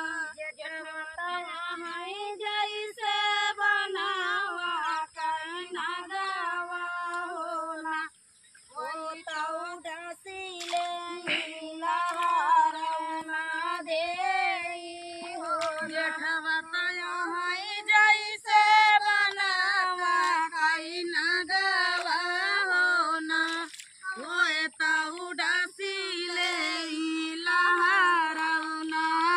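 A woman's voice singing a dhaan ropai kajari, a folk song for paddy transplanting, unaccompanied, with a brief pause about eight seconds in.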